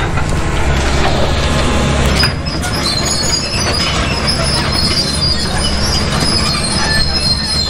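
Caterpillar 320C hydraulic excavator working, its diesel engine running steadily under load. From about two seconds in, its steel tracks squeal and clank as it moves over the ground.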